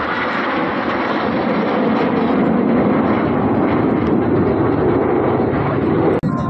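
Jet aircraft flying over in formation: a loud, steady engine roar that deepens as it goes on, then cuts off suddenly near the end.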